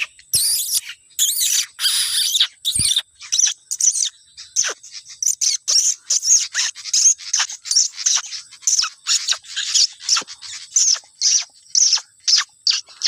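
Pied fantail (sikatan kipas) chirping: a steady run of short, sharp, high chirps, a few every second, with harsher scratchy notes in the first few seconds.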